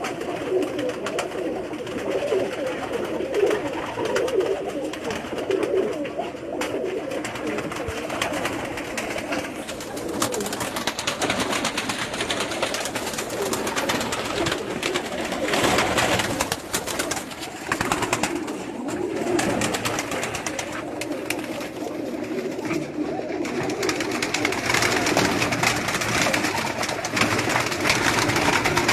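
Many pigeons cooing at once, a continuous overlapping chorus of low coos.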